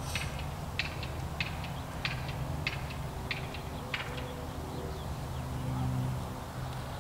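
A duck quacking in an even series, about one and a half quacks a second, stopping about four seconds in, over a steady low hum.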